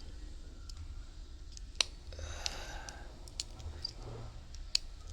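Sharp snips and clicks of a cutter trimming the plastic centre spline out of a stripped Cat 6 cable, three distinct cuts about a second and a half apart over light rustling of the wires being handled.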